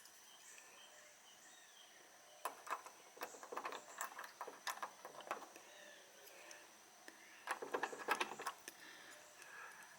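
Screen door lock and latch being worked by hand: two spells of small metal clicks and rattles, the first about two and a half seconds in and the second about seven and a half seconds in.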